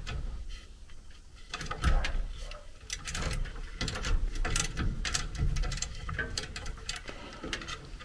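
Irregular small metal clicks and ticks of a service wrench working the pressure-tap screws on a gas furnace's gas valve, opening the inlet and manifold taps so the manometer adapters can be fitted.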